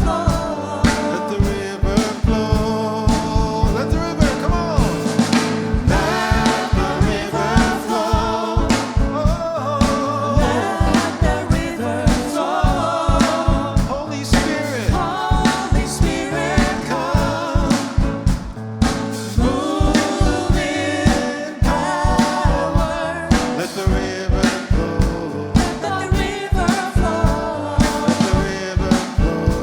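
Live worship band playing a gospel-style song, with singing over it and a drum kit keeping a steady beat.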